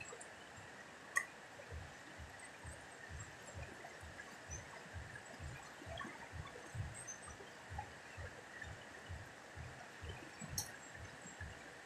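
A wide, fast muddy river flowing, a faint steady rush of water, with soft irregular low thumps and two sharp clicks, one about a second in and one near the end.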